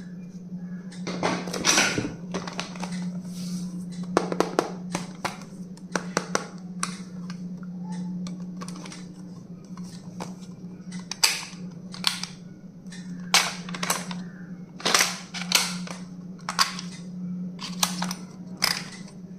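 Stationery and its plastic packaging being handled close up: a string of irregular sharp clicks and snaps with crinkly rustling between them, over a steady low hum.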